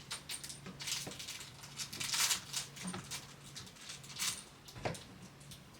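Metal door-handle parts clicking, knocking and scraping as the halves of a lever handle set are pushed into the latch through the door, with a longer scrape about two seconds in.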